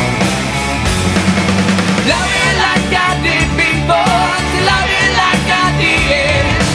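Rock music with drums and distorted guitar; a melodic line that could be a voice or a lead guitar enters about two seconds in.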